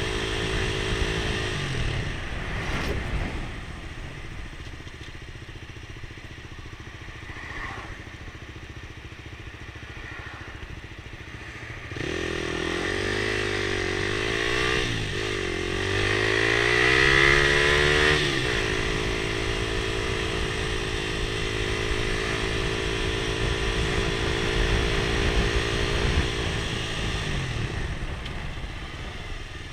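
Motorcycle engine heard from the rider's seat: it eases off and runs quieter for several seconds, then, after a sudden jump in the sound, its revs rise and fall several times before it settles into a steady cruise and eases off again near the end.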